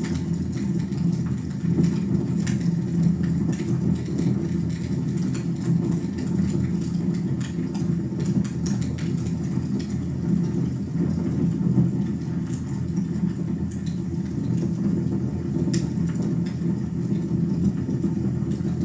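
Fireplace fire burning: a steady low rumble of flames with faint, scattered crackles.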